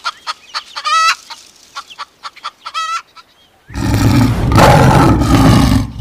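Hens clucking, with two longer drawn-out calls about one and three seconds in. Nearly four seconds in, a lion roars loudly for about two seconds.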